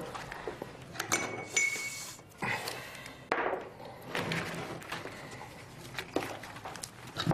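Tableware clinking and knocking as people eat at a table: dishes, cutlery and glasses, with a short ringing clink about a second in.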